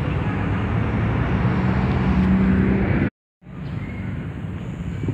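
Steady outdoor rumble of road traffic. It cuts to silence for a split second about three seconds in, then carries on softer.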